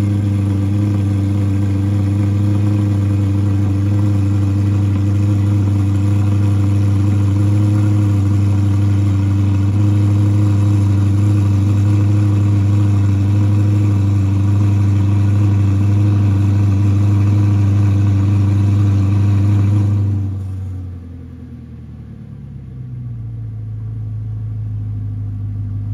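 Audi R8's 4.2-litre V8 idling after a cold start through an Armytrix aftermarket exhaust with its valves open: a loud, steady idle. About 20 seconds in it drops to a much quieter, muffled idle with the exhaust valves closed.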